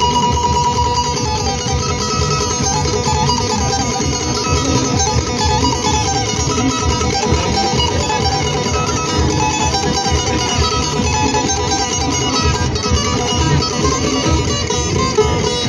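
Çiftelia, the Albanian two-string long-necked lute, plucked in a continuous folk melody over a steady held drone note.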